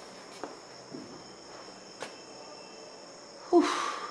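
Steady high-pitched chirring of crickets in the background, with a few faint clicks. A short, loud burst of sound comes about three and a half seconds in.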